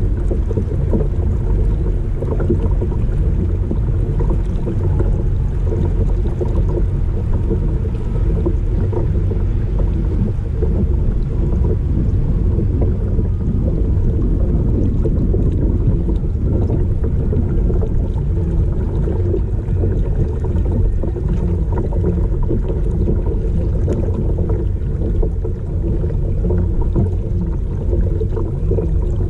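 Steady drone of a small motor pushing a fishing kayak along, a constant hum with a heavy low rumble of wind and water underneath.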